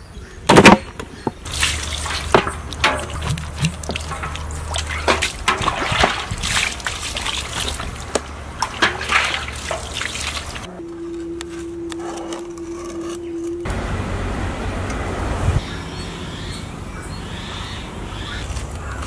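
A loud thump as a skinned goat carcass is set down on a large steel tray, then water poured and splashed over the carcass, with many small splashes and knocks on the metal. After that a steady hum for about three seconds, then an even hiss.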